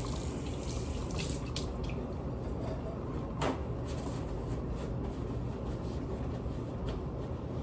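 Kitchen sink tap running while hands are rinsed and washed. The water sound fades after about two seconds, leaving a steady low hum and a few small knocks, the clearest about three and a half seconds in.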